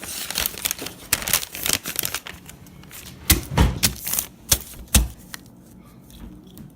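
Paper and packaging being handled: quick rustling and clicking, with a few louder sharp knocks about three to five seconds in.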